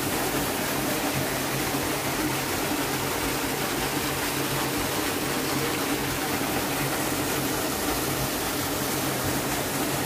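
Small hot-spring waterfall splashing steadily into its rock pool.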